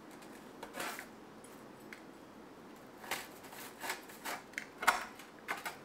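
A crisp, slightly burnt pizza crust being cut, in about six short crunchy strokes, the loudest one near the end.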